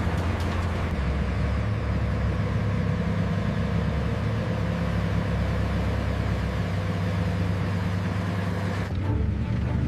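M48 Patton tank's Continental V12 engine running as the tank drives: a steady low drone with noise from the running gear over it. The sound changes abruptly just before the end.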